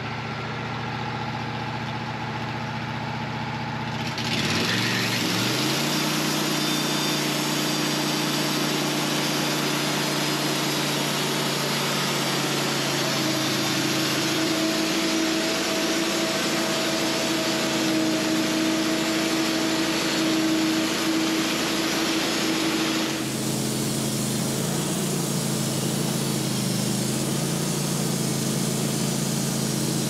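Wood-Mizer band sawmill running. About four seconds in, the engine comes up to speed and the band blade cuts through white oak on the final cut squaring a beam, a loud, steady mechanical noise. After about twenty seconds it eases back as the cut ends, and the engine keeps running.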